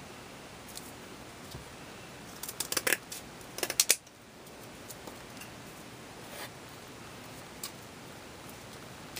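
Scissors cutting off the excess from a craft-foam crayon sign: two quick clusters of sharp snips, the second sharpest, ending about four seconds in, then only a few faint clicks.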